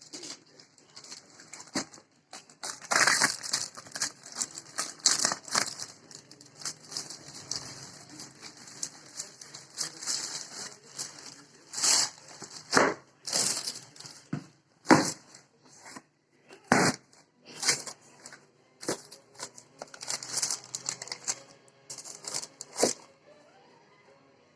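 Shoe-box packaging being handled and opened: wrapping paper and plastic crinkling and rustling in irregular bursts, with occasional tearing.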